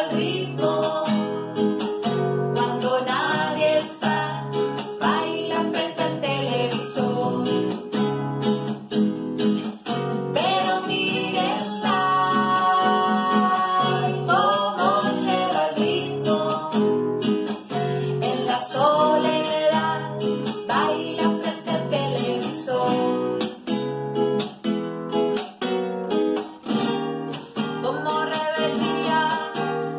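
A classical guitar, with a capo on its neck, accompanying a man and a woman singing a song, with one long held sung note about twelve seconds in.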